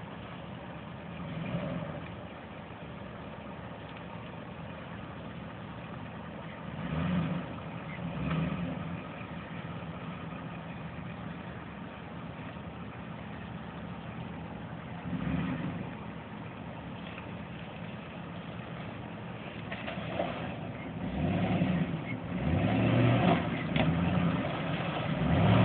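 Hummer H2's V8 engine running at low speed, given short bursts of throttle as the truck crawls through a rutted ditch. The bursts come more often and louder toward the end as the truck draws near.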